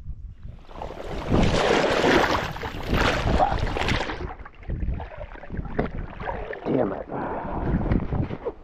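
Loud splashing and churning water as a wading angler, his foot stuck in the lake-bottom muck, loses his balance and goes into the shallow water, strongest for the first few seconds. Irregular sloshing and splashing follows.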